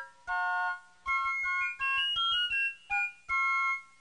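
Background music: a bright keyboard melody of short stepping notes over a light beat, pausing briefly between phrases.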